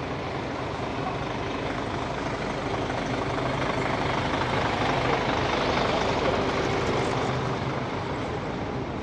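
Coach bus driving slowly past at close range, its engine running steadily. It grows louder toward the middle and then eases off.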